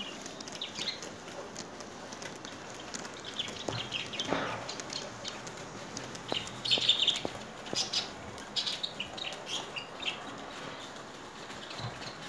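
An N-scale model freight train running past on the track, with light clicks from its wheels. High chirps come every second or two over it.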